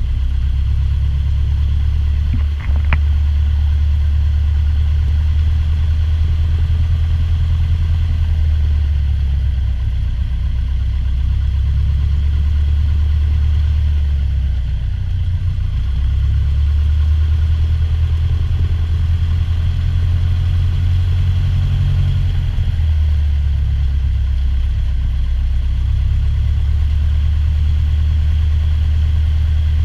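Single-engine piston airplane's engine and propeller running at low taxi power: a steady low drone with small changes in power. There is a brief click about three seconds in.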